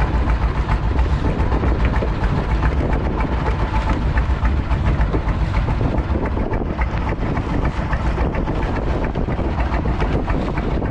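Wind buffeting the microphone over a steady low rumble, with scattered small ticks and splashes of sea water on a small fishing boat.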